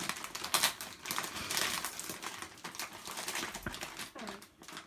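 Thick, shiny foil gift wrap crinkling and crackling in quick, irregular bursts as it is pulled and torn open by hand.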